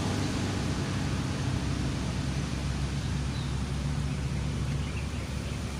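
Steady low rumble with an even hiss of background noise throughout.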